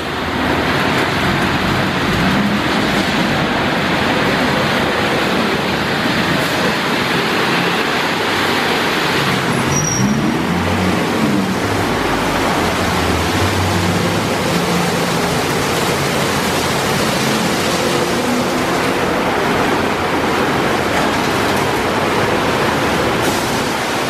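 Ceccato Aquarama Stargate S7 rollover car wash in its brush cycle: rotating brushes scrubbing a car's body, a steady loud wash noise over the hum of the gantry's motors. The hiss lessens about nine seconds in, and the motor hum shifts in pitch soon after.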